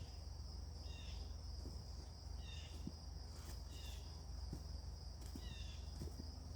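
A steady high-pitched insect trill with a songbird repeating a short chirped phrase about four times over it.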